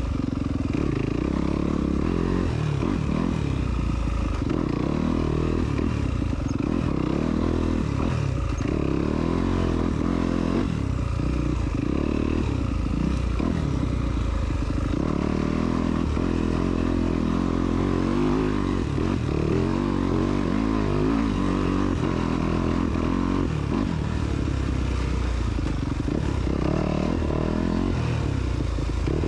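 Off-road motorcycle engine being ridden along a trail, its revs rising and falling again and again with the throttle, with rattling from the bike over the rough ground.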